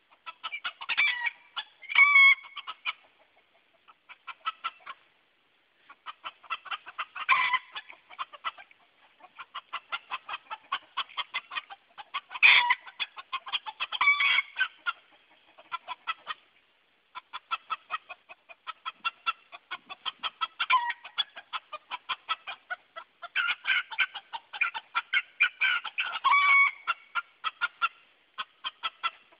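Silver Sebright bantam roosters giving rapid alarm clucks, alarmed by an unfamiliar toy duck. The clucks come in long, fast runs of several a second, twice broken by short pauses.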